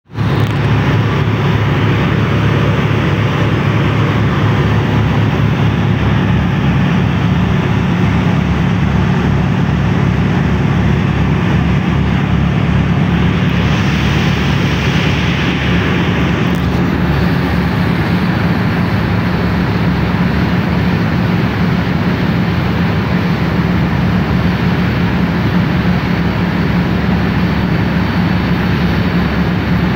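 Tugboat's diesel engines running with a loud, steady low drone. A hiss rises for a few seconds about midway.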